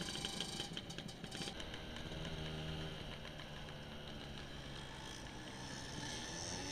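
Motor scooter engine running steadily while being ridden, heard from a camera mounted on the scooter, with some rattle. A higher whine rises near the end.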